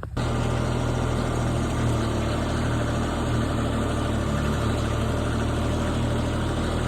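Rippa NDI665 mini skid steer's 23-horsepower diesel engine running steadily as the machine lifts a load of about 510 pounds.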